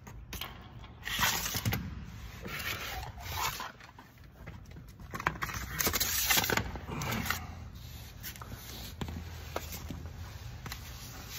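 Clothing and body scraping and rubbing along the floor as a person crawls under a car, in several rustling bursts with a few faint knocks.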